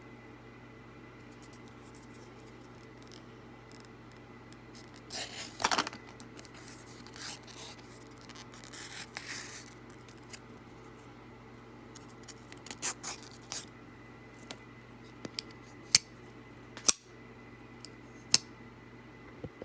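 A folding pocket knife being handled: scraping and rustling, then a run of sharp, separate clicks, roughly one a second, in the second half.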